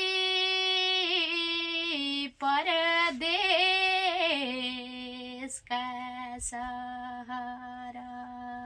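A woman singing a Nepali thadi bhaka folk song solo, drawing out long held notes with wavering ornaments. About four seconds in she drops to a lower note and holds it, growing quieter, until the phrase ends.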